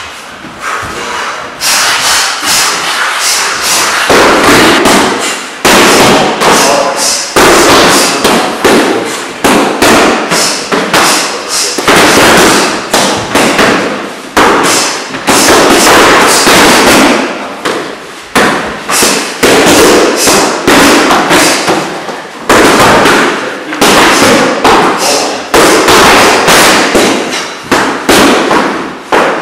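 Boxing gloves striking focus pads in quick, repeated punches.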